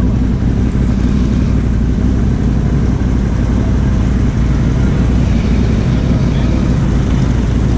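ATV engine running steadily at low revs, without revving up or down.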